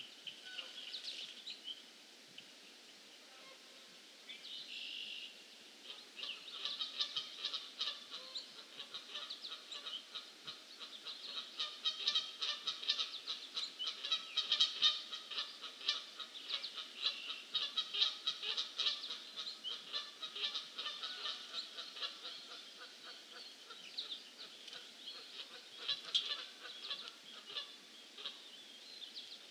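A dense chorus of rapid, high-pitched chattering animal calls, sparse at first and thickening about six seconds in.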